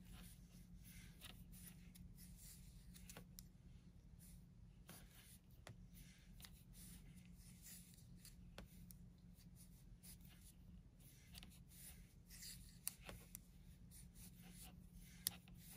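Faint clicking of metal circular knitting needles and soft rubbing of bulky cotton yarn as knit stitches are worked, with a couple of sharper ticks near the end, over a low steady hum.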